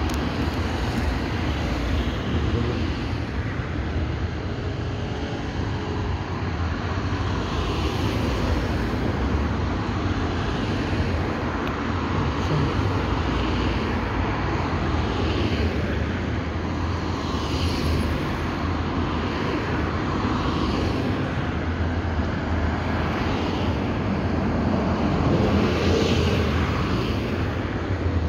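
Road traffic passing on a busy street: cars and a motorcycle driving by, their tyre and engine noise swelling and fading every few seconds over a steady low rumble.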